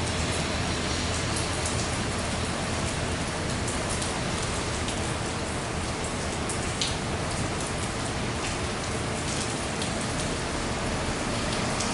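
Steady rain, with scattered raindrops ticking close by, over a low rumble.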